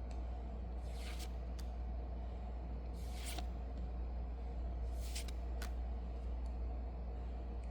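Brief rustles and swishes of Yu-Gi-Oh trading cards being handled and sorted, one every second or so, over a steady low hum.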